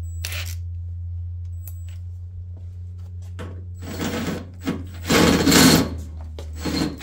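Cordless drill running in short bursts as it drills out a stripped threaded hole in metal to take a rivet nut, over a steady low hum; the drilling starts a few seconds in, with about three pulls of the trigger.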